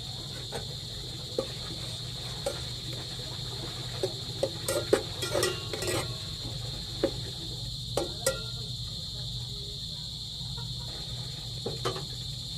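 Metal spoon stirring and scraping in an aluminium pot of sardines in sauce, with a cluster of clinks and knocks about halfway through and a few more later. Underneath, crickets chirr in a steady high trill over a low steady hum.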